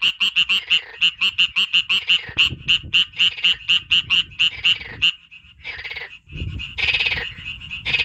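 Frog calling: a fast, even run of short, high, beep-like notes, about seven a second. After about five seconds it falls briefly quiet, then gives a denser, rattling stretch near the end.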